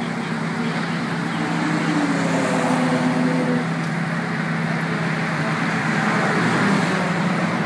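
A car engine idling steadily, a low even hum that neither revs nor stops.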